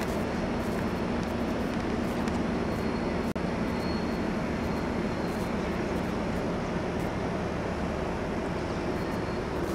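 Distant log-carrying freight train passing, heard as a steady low rumble.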